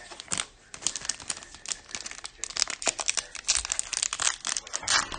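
Trading-card pack wrappers crinkling as they are torn open and handled: dense, rapid crackling that starts about a second in and keeps up.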